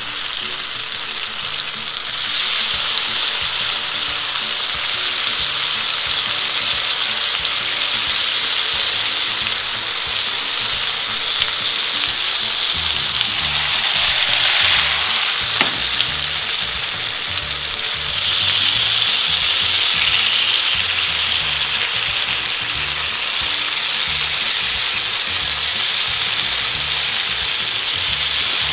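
Marinated pork skewers sizzling on a hot ridged grill pan. The steady sizzle grows louder about two seconds in and swells at times as more skewers go into the pan.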